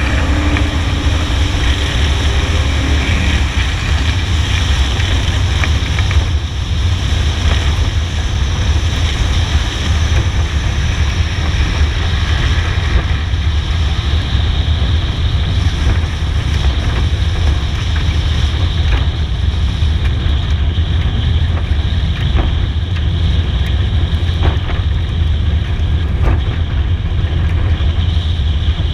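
Steady rush of wind over a microphone mounted on the roof of a stock car, with the car's V8 engine rumbling low beneath it.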